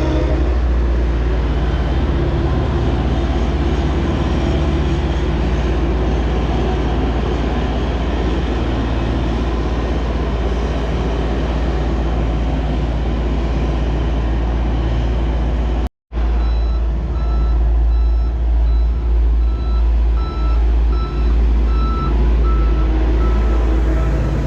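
Heavy road-construction vehicle engine running with a steady low rumble. After a cut partway through, a reversing alarm beeps repeatedly over the engine for several seconds.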